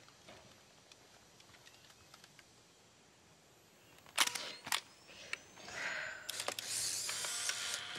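Camera shutter clicking about four seconds in as a photo is taken with a flash-equipped film camera, with a second click half a second later. A faint rising whine follows, then rustling and small clicks near the end.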